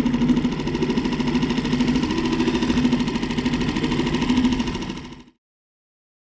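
Mercury outboard motor running steadily, a low even hum with a fast regular pulse; it cuts off abruptly about five seconds in.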